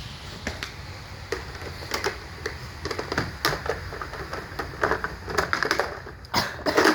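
Toys clattering and clicking as they are handled: a string of irregular light knocks that grows busier and louder toward the end.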